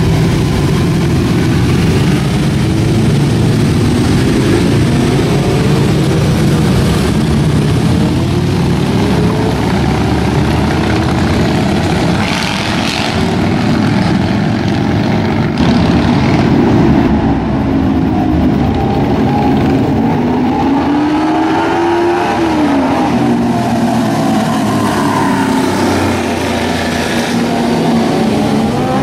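Motorcycles riding past one after another, their engines revving, the pitch rising and falling as each goes by, over a continuous rumble of engines.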